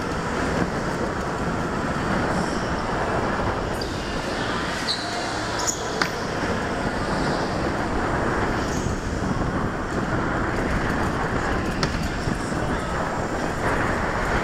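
Go-kart driving at speed on an indoor concrete track, heard from onboard: a steady rushing noise of the motor, tyres and wind, with a couple of sharp clicks.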